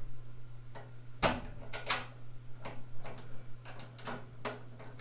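Irregular small metal clicks and knocks, about a dozen, from the handle, bolts and mounting plates being fitted to a steel tool cart, with one louder knock just over a second in.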